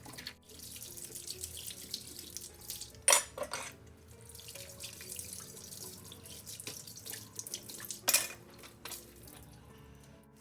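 Water running from a tap into a sink, with louder sudden sounds about three seconds in and again about eight seconds in.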